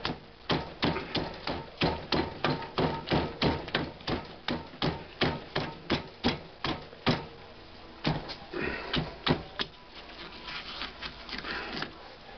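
Rapid hammer blows, about three a second, on a Toyota Tercel front strut, knocking the old, deteriorated bump stop and shield off the strut shaft. The steady hammering stops about seven seconds in, followed by a few scattered lighter strikes.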